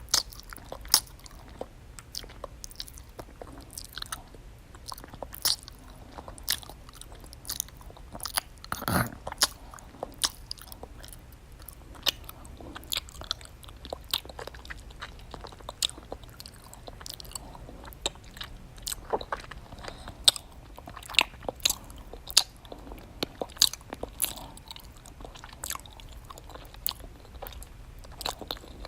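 Close-up mouth noises of open-mouthed eating: wet smacking and crunching chews in an irregular run of sharp clicks, with one longer, louder wet sound about nine seconds in.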